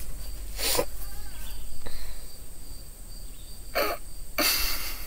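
Short breathy bursts of stifled laughter, three of them, the last the longest, from someone trying to keep a straight face.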